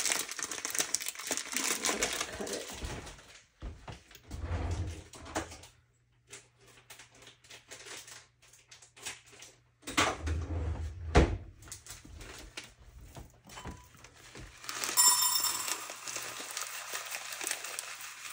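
Plastic bag of orzo pasta crinkling as it is handled for the first few seconds, followed by scattered handling clicks and low knocks, and a short ringing tone about fifteen seconds in.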